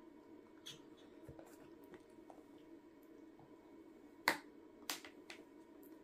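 Faint clicks and wet mouth smacks as a baby is spoon-fed puree, with two sharper clicks of the spoon about four and five seconds in.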